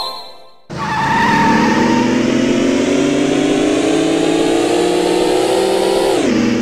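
Cartoon race-car sound effect from a letter-tracing app: an engine note with a hiss starts suddenly just under a second in and climbs slowly in pitch for about five seconds, then drops in pitch and fades as the car reaches the end of the track.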